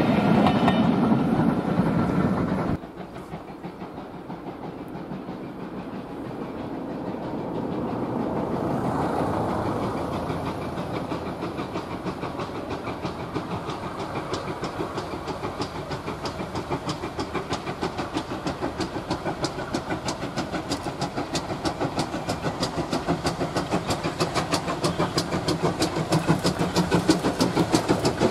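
Passing railway coaches rumbling and clattering over the rails, cut off suddenly about three seconds in. Then GWR Manor-class 4-6-0 steam locomotive No. 7822 'Foxcote Manor' pulling away with its train, steam hissing at the cylinders and a rhythmic beat that grows louder as the engine draws past.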